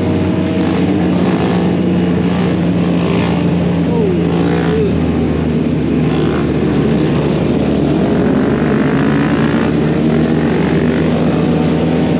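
Motorcycle engine running at a steady speed, with a brief change in pitch about four and a half seconds in.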